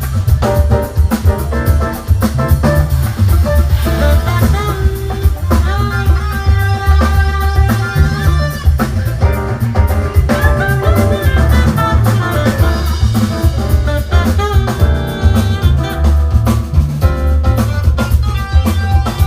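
Live band playing: a drum kit keeps a steady beat under bass and guitar, with held melodic notes on top.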